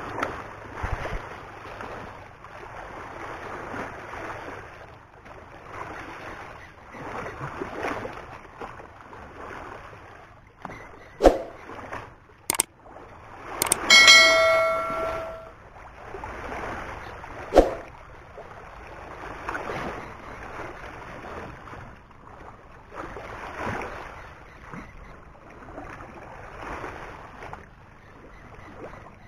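Small waves washing against the shore, surging every couple of seconds. A few sharp clicks, and about halfway a bright bell-like chime from a subscribe-button animation's sound effect.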